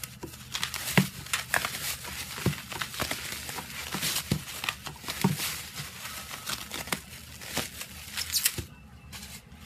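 Bubble wrap crinkling and rustling as hands handle it and pull it off packaged albums, with frequent sharp crackles; it dies down near the end.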